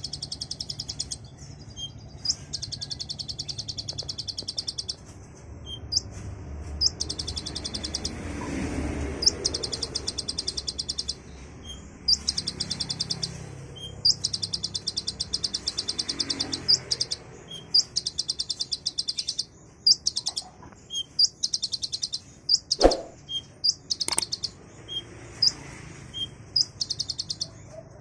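Kolibri ninja (a sunbird) singing in rapid high-pitched trills, a 'tembakan' song of repeated fast runs a second or two long broken by short gaps and single chirps. Two sharp clicks come in the last third over a low background hum.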